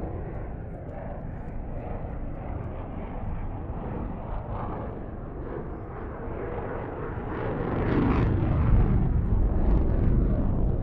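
Jet aircraft engine noise from an airshow display heard at a distance, a deep, bass-heavy sound that swells louder about seven seconds in as the jet comes closer or powers up.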